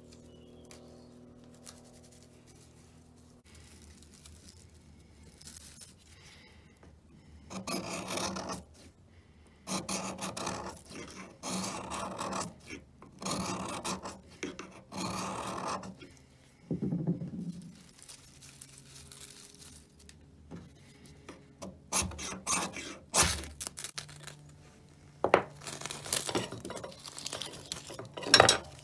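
A knife's spine scraped down a ferrocerium rod over a nest of dry wood shavings to throw sparks. First comes a run of about six slow scrapes, each about a second long, then quicker, sharper strikes near the end, by which time the shavings are alight.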